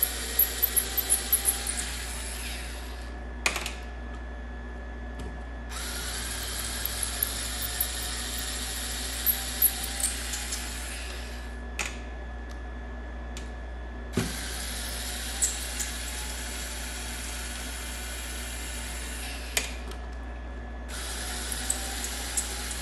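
Compact Ryobi cordless driver whirring as it backs out the security Torx screws from a Ridgid 18V lithium-ion battery pack's case. It runs in four spells of several seconds each, with short pauses between them, and there is a quick run of sharp clicks at the start and a few single clicks later.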